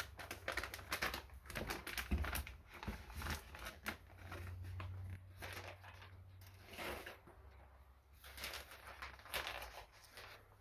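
Light, irregular clicks and rustles of tire-repair kit packaging and items being handled, with a faint low hum underneath.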